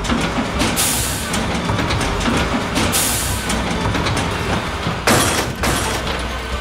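Cartoon soundtrack: background music over a running treadmill machine, with three short, loud rushes of noise, the last as the pickup truck is flung off the treadmill.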